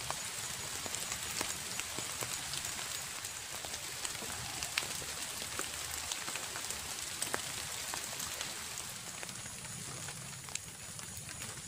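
Steady rain falling on the river and the bank, with many separate sharp drop hits scattered irregularly through it.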